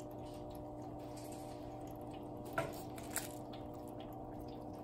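Steady low hum of a quiet room, with two light knocks a little past halfway, the second fainter, as a cat runs across a wooden floor after a thrown toy mouse.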